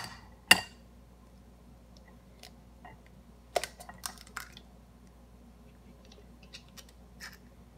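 An egg knocked sharply twice to crack its shell, then smaller crackling clicks about three and a half seconds in as the shell is pulled apart and the egg drops into a glass.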